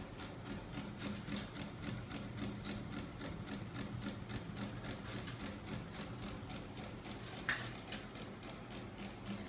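Homemade magnet-driven crankshaft and flywheel rig running on a small 24 V electric motor: a steady motor hum under an even, rapid clacking from the turning linkage, with one sharper click about three-quarters of the way through.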